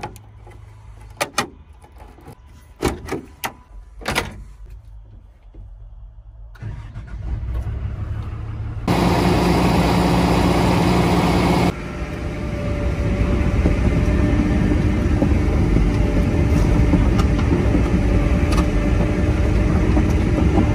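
Hyundai excavator's diesel engine: a low hum broken by a few sharp knocks, then about six seconds in it comes up louder, jumps again near nine seconds, and runs loud and steady.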